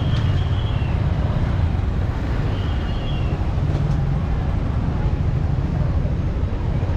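Motorbike and car engines in slow, congested street traffic, a steady low rumble. A faint high-pitched tone sounds briefly at the start and again about three seconds in.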